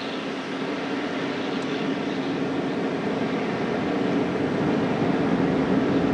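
Railroad crossing warning bell ringing steadily with the flashing signals activated. The crossing is set off with no train moving, which the uploader puts down to tank cars standing on the siding right at the crossing.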